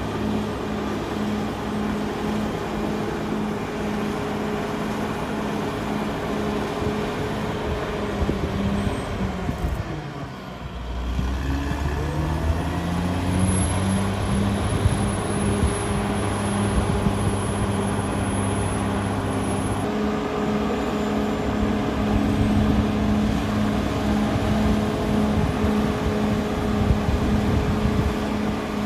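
Cat D6R XL crawler dozer's diesel engine running steadily under load as it pushes soil. About ten seconds in the engine note falls and then comes back up.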